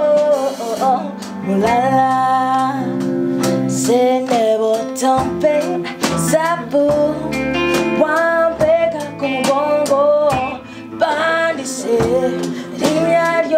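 A woman singing a melody of held, wavering notes over a steady instrumental accompaniment.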